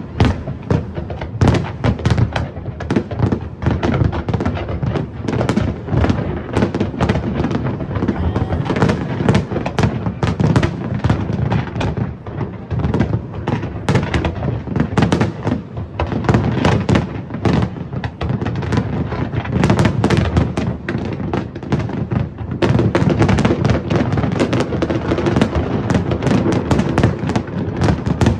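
Large fireworks display: a dense, continuous barrage of shell bursts and crackling bangs with a deep rumble underneath.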